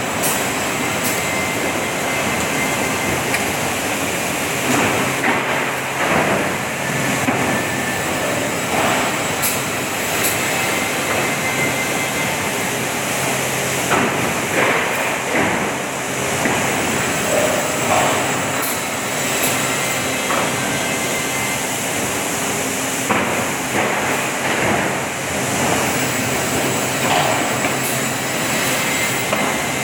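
Plywood sanding machine running: a loud, steady industrial noise with small rises and falls and a faint low hum underneath.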